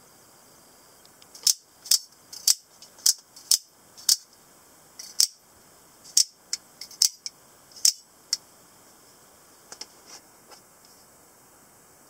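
Spring-loaded out-the-front automatic knife, its blade fired out and snapped back into the handle again and again. It gives a series of sharp metallic clicks, about a dozen over six seconds, roughly half a second apart, then a few faint clicks near the end.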